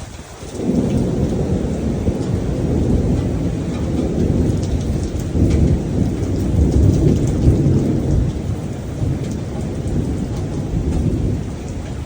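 Rain falling steadily with a long roll of thunder that swells about half a second in and rumbles on before easing off near the end.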